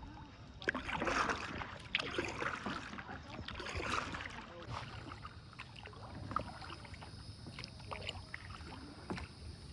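Kayak paddle strokes: water splashing and dripping off the paddle, with a swell of splashing about a second in and again near four seconds, then quieter.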